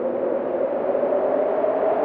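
A steady droning sound effect: a noisy hum with a few blurred tones in the middle range that drift slowly upward.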